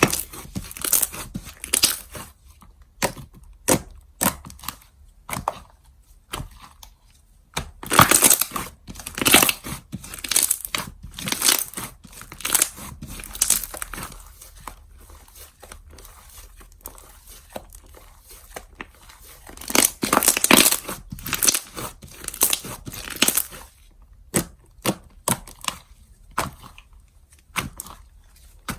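Slime being squished and stretched by hand, making sticky crackling pops and clicks. The pops come in clusters, with the busiest stretches about eight and twenty seconds in.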